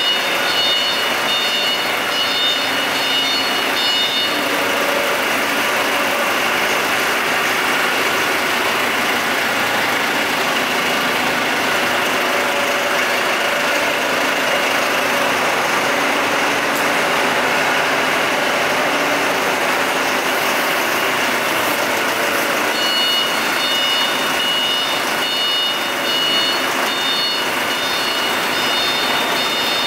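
A large diesel generator set running steadily at speed, a loud, even machine noise. A high-pitched broken beeping tone sounds over it for the first few seconds and again through the last several seconds.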